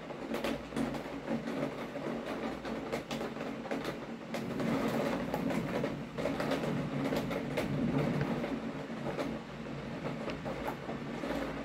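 Steady rain falling, a constant hiss with many sharp, scattered taps of drops striking close by.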